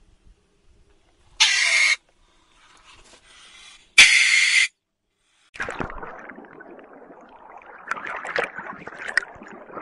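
Two loud, high-pitched Eurasian otter squeals, each about half a second long and about two and a half seconds apart. From a little past halfway comes a rough, watery noise with scattered clicks.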